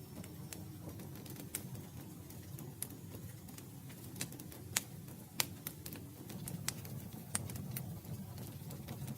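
Wood fire crackling: irregular sharp pops and snaps of burning wood, the loudest about halfway through, over a steady low rumble of the flames.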